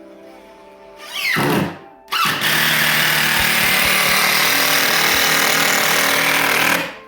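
A handheld power tool runs twice. The first is a short burst about a second in, with a falling whine. The second is a longer steady run from about two seconds in that stops abruptly near the end.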